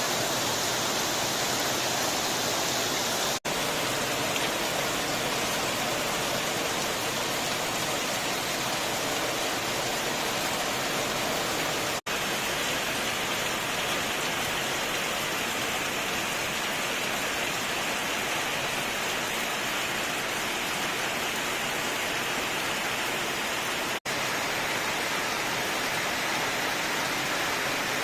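Heavy rain pouring down steadily. It cuts out for an instant three times, about 3, 12 and 24 seconds in, where clips are joined.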